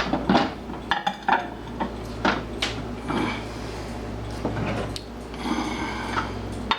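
Two cups being fitted into a microwave, clinking and knocking against each other and the microwave's inside, with several sharp clinks in the first few seconds and some scraping as they are shuffled into place.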